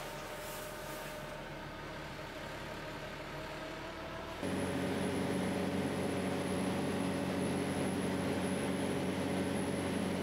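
A motorboat's engine drones steadily while under way. About four seconds in, it changes abruptly to a louder, deeper drone.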